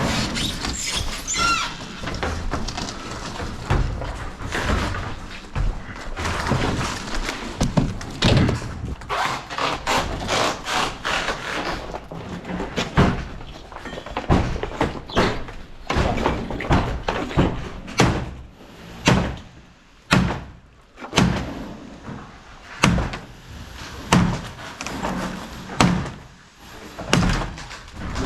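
Repeated heavy knocks and bangs, irregular at first, then settling into about one blow a second in the second half.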